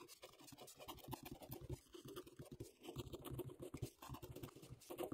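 Ballpoint pen scratching on grid paper, faint and in short irregular strokes as block capital letters are written.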